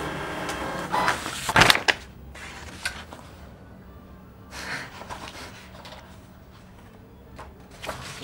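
A freshly printed sheet of paper pulled from a Canon inkjet printer and handled: a sharp paper rustle about a second and a half in, a softer rustle a few seconds later, then quiet room tone.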